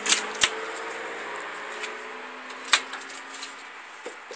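Cardboard packaging being handled while a tool chest is unpacked: three sharp knocks, two right at the start and one a little past halfway, over a faint steady hum.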